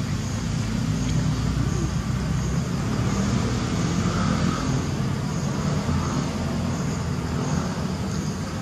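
Outdoor ambience: a steady low rumble, with insects chirping faintly and regularly, a little more than once a second.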